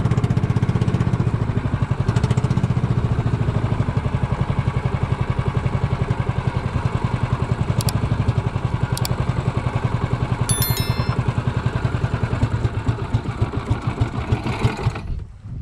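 Small engine of a motorised outrigger banca running steadily with a fast even beat, then cut off near the end as the boat reaches the shore.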